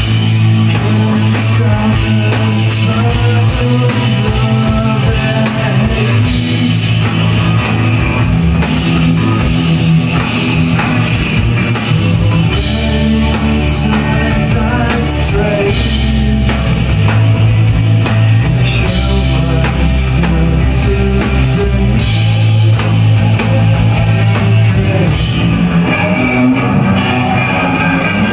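Loud rock music with electric guitar, a drum kit keeping a steady beat, and singing.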